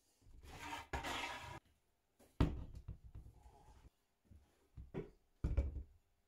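A scrape lasting just over a second, then several separate knocks.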